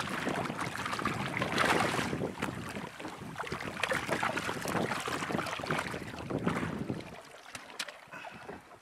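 Giant trevally thrashing at the water's surface beside a boat, irregular heavy splashing, with wind on the microphone. The splashing dies down about seven seconds in.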